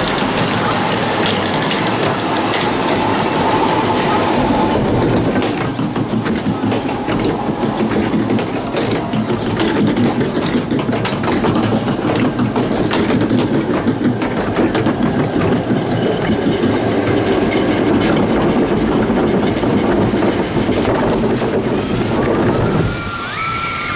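Log flume boat being hauled up the lift ramp by its conveyor, a continuous loud mechanical rattle and clatter, with rushing water under it at the start. The clatter stops and the level drops near the end as the boat reaches the top and floats into the water channel.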